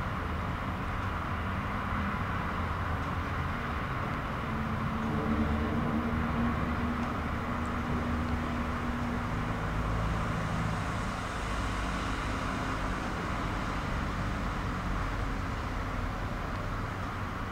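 The cargo ship's engines running, heard from the quay as a steady low mechanical drone with a continuous hiss; a low hum rises for a few seconds near the middle.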